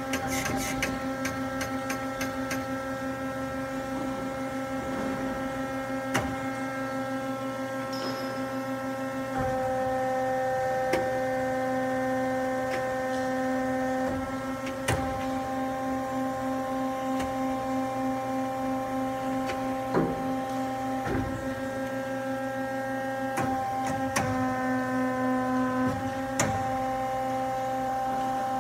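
Hyd-Mech V18A vertical band saw running: a steady machine hum and whine, whose pitch steps up or down several times as the machine's functions are switched, with a few sharp clicks.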